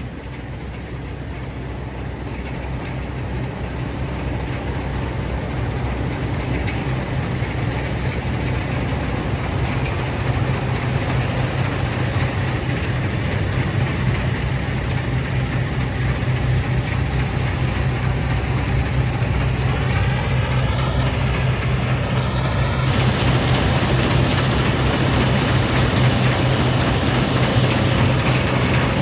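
Fortschritt E514 combine harvester running steadily as it cuts the last strip of wheat, its engine hum growing louder as it comes closer.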